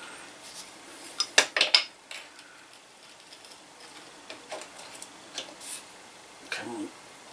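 Metal hand tools clinking against a bicycle's bottom bracket while its bearing cup is adjusted: a quick cluster of sharp clinks about a second and a half in, then a few lighter taps.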